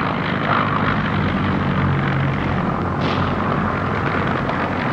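Propeller aircraft engines droning steadily, a low hum under a rushing noise, from an archival documentary soundtrack.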